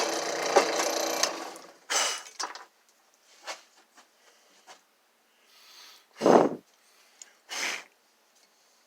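Wood being cut: a steady cutting noise that fades out about two seconds in. It is followed by a few separate knocks and scrapes of the cut wood being handled, the loudest about six seconds in.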